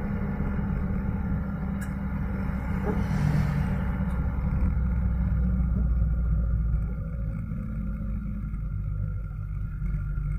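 Light truck's engine and road noise heard from inside the cab while driving, a steady low rumble that gets quieter about seven seconds in.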